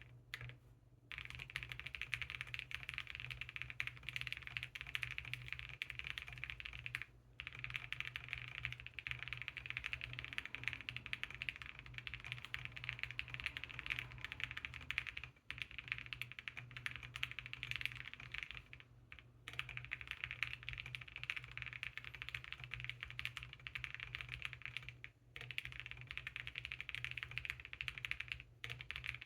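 Continuous typing on a Space80 mechanical keyboard with an aluminium case, FR4 plate, Gazzew Boba LT switches and full foams: a fast, dense patter of key presses that breaks off briefly three or four times. A steady low road-noise rumble runs underneath, picked up by a phone microphone.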